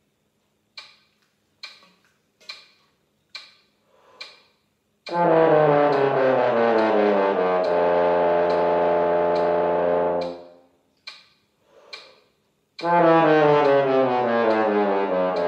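A metronome clicking at 70 beats a minute, four clicks, then a French horn comes in with a descending chromatic run into its middle-low register and holds a low note. It stops about ten seconds in, and after two more clicks starts the falling run again.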